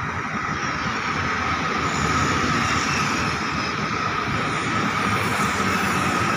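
Steady roadside traffic noise from vehicles passing on the road.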